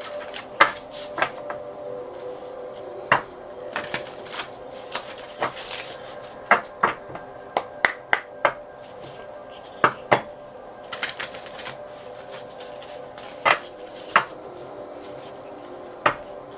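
A new oracle card deck and its box being handled: irregular sharp taps and clicks of cards knocking and being shuffled on a surface, over a faint steady tone.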